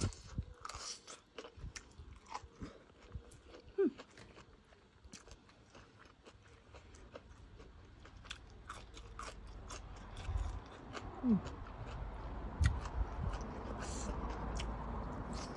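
Close-up chewing and crunching as a person eats bamboo-shoot curry by hand, with many small sharp wet mouth clicks. A steady background hiss grows louder in the second half.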